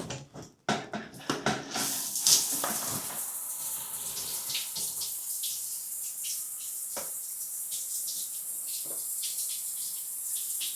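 A few knocks, then from about two seconds in a steady hiss of shower water running into the stall. The water is being run to check that the just-cleared drain carries it away.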